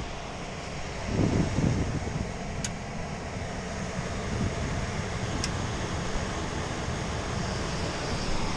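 Steady low rumble of an HVAC unit running while its heat is jumped, with two faint sharp ticks a few seconds apart.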